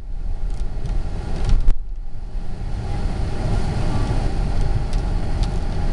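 Storm wind buffeting the microphone: a loud, unsteady low rumble, with a few faint clicks in the first two seconds.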